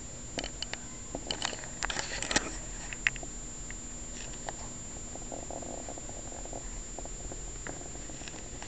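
A cat eating cat food: a run of small, sharp crunching clicks through the first three seconds or so, then quieter, with faint chewing noises a little past the middle.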